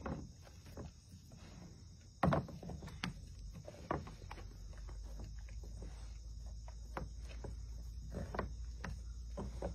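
A large dog licking and gnawing a big birthday bone on a wooden deck, with irregular wet licking and chewing strokes. A sharp knock comes about two seconds in, followed by a couple of lighter ones.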